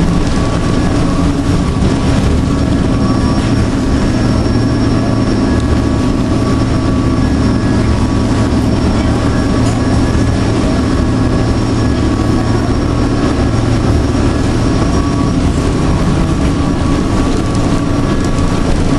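Passenger ferry's engines running steadily, heard from inside the cabin: a constant low hum with a few steady higher tones.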